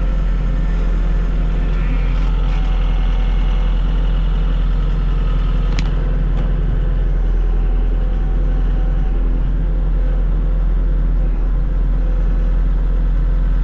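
Kubota tractor diesel engine running at a steady speed, with a single faint click about six seconds in.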